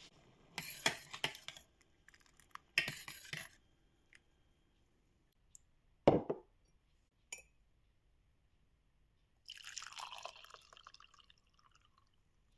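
Liquid being poured and dripping, with glassware and utensils clinking: two short spells of splashing near the start, one sharp knock about six seconds in, and a longer spell of pouring near the end.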